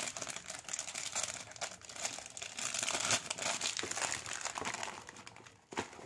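Packaging being handled: a dense crinkling and rustling that goes on for about five and a half seconds, then stops.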